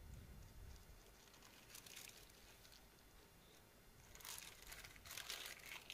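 Faint crinkling of the thin plastic sheet lining a hand press as it is peeled back from a pressed disc of rice dough: a short rustle about two seconds in and longer rustling in the second half.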